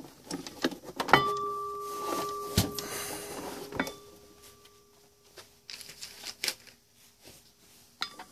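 Metal turntable platter knocked as it is set in place, ringing with a clear two-pitched tone that fades away over several seconds, knocked again a few seconds later. Soft clicks and rustling follow as the rubber platter mat is handled.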